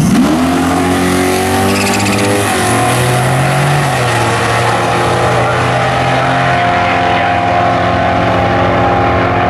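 Two drag-racing cars launch off the start line and accelerate away down the strip, engines revving hard. Their pitch sweeps up at the launch, then steps through the gear changes as they pull away.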